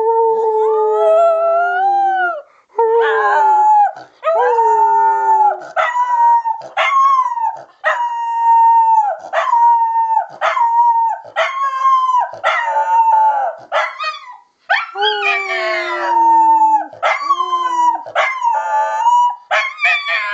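Miniature schnauzer howling: a long run of drawn-out, pitched howls, each about a second long and sliding down at its end, with short breaks between them.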